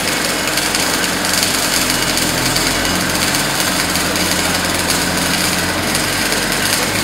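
GZK4240 double-column automatic bandsaw running with its blade in the cut through a bundle of square metal bars: a steady machine hum under an even hiss of cutting.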